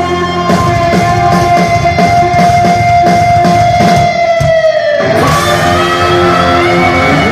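Live heavy metal band: distorted electric guitars holding a long note over steady drum hits. About five seconds in, the note bends down and new notes take over.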